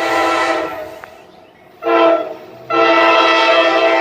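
Nathan K5LA five-chime air horn on a CSX GE CW44AC locomotive, sounding a chord in blasts. A long blast fades out about a second in, a short blast comes near two seconds, and then a long steady blast is held.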